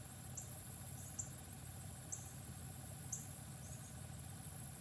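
A steady, very high drone of summer insects, with short, high, falling chirps about once a second, and a low steady hum underneath.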